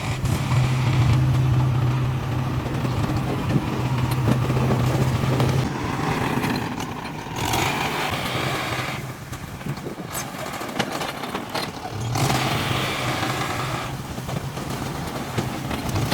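Heavy diesel construction machinery running and working, a steady low engine hum that shifts abruptly several times as different machines are heard.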